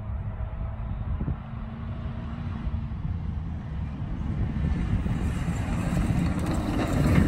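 A comp safari off-road buggy's engine running hard as it drives toward the listener at speed, growing steadily louder.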